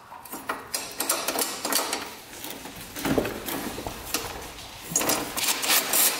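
Socket ratchet clicking in quick runs as the 10 mm bolts holding an ATV's voltage regulator rectifier are turned, with small metal knocks of tool and part; the clicking is densest near the end.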